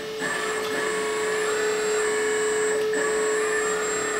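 Electric hydraulic pump of a 1/14 metal RC excavator running with a steady whine while the boom and arm are driven. A higher whine over it cuts out briefly twice, about half a second in and near three seconds in, as the arm's movement starts and stops.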